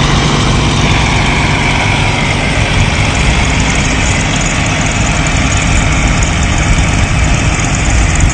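Cat 349 excavator's diesel engine running steadily while the machine's hydraulics work the counterweight hoist to lift the counterweight.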